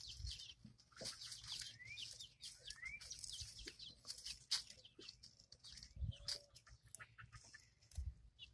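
Month-old chicks peeping faintly, with a few short rising cheeps in the first few seconds, over light scattered taps and rustles as they peck at food in the straw.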